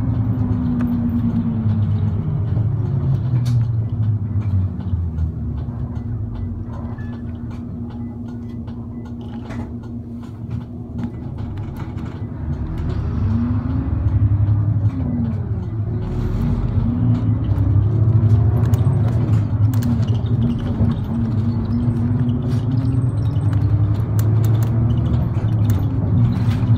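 A route bus's diesel engine and road noise, heard from inside the cabin. The engine grows quieter a third of the way in, then its pitch rises and falls again and again as the bus picks up speed.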